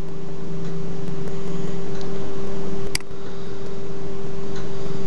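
Steady hum with a constant low tone over a noise hiss, like a computer fan or electrical hum picked up by the microphone, with a single sharp mouse click about three seconds in.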